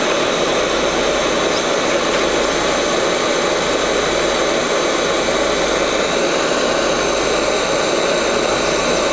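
Hot air rework station blowing a steady, loud rush of air onto a MOSFET on a laptop motherboard to melt its solder and lift it off.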